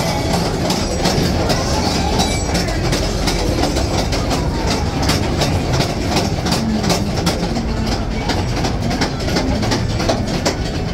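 Mine-ride ore cars rolling along their track, a steady rumble with a rapid, constant clatter of wheels and car couplings.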